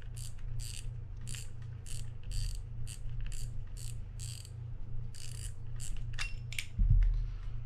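Front drag knob of a Shimano Sustain 4000 spinning reel clicking as it is turned, giving a series of sharp clicks about two a second. A louder low bump comes near the end.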